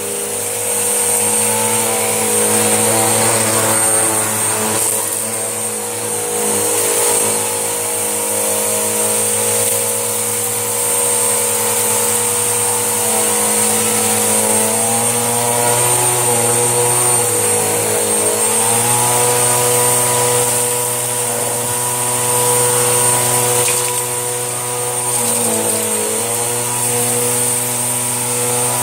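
Panasonic bagged vacuum cleaner running steadily through a pile of hair and debris. Its motor note dips briefly a few times and then recovers.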